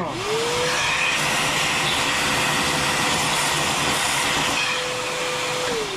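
Sherline CNC mill milling 1018 steel with a quarter-inch four-flute carbide end mill at 2700 RPM: loud, harsh cutting noise over the spindle motor's whine. The whine climbs back up in pitch just after the start, holds steady, then sags near the end as the motor struggles to power through the cut at this feed.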